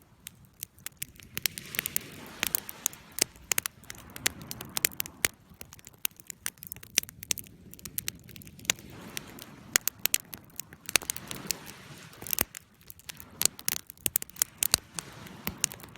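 Campfire burning with dense, irregular crackles and pops over a low, soft rushing of flame.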